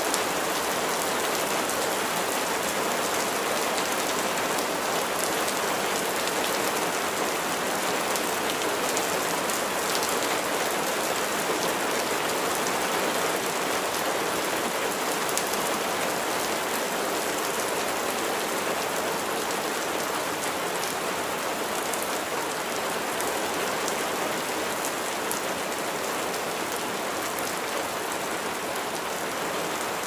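Steady rain falling, an even hiss with the patter of individual drops striking leaves and surfaces.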